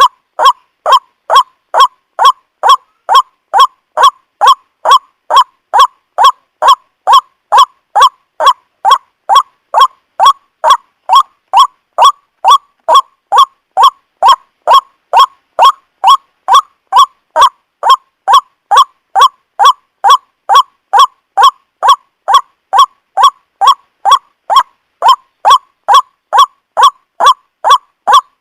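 White-breasted waterhen (ruak-ruak) call, a short note repeated evenly about twice a second without a break, played as a lure to attract the birds.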